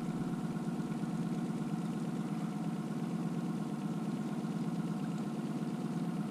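Boat motor idling steadily at trolling speed, a constant even hum with no change in pitch.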